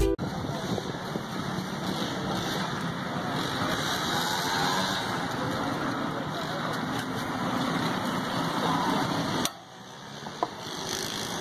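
Busy street noise: a steady engine-like hum with faint voices. It drops away suddenly about nine and a half seconds in, then builds back up.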